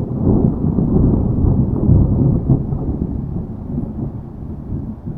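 A long, low rumble of thunder that swells in the first couple of seconds and then slowly fades.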